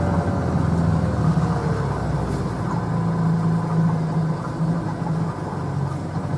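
Small sailing boat's engine running steadily under way, a low hum that eases slightly in the first second.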